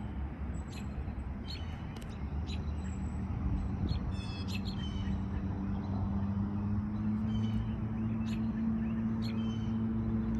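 Small birds calling again and again with short, sharp, high chirps, over a steady low hum that comes in about three seconds in.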